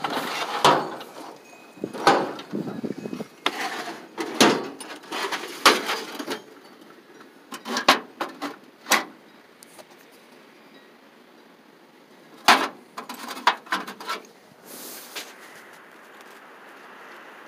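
Irregular knocks and clatter of tools and a metal toolbox being rummaged through, in clusters with a quieter spell past the middle.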